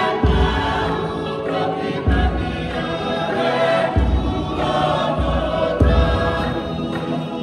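A Tongan group sings a tau'olunga song in close choral harmony, with deep bass notes that change every second or two beneath the voices.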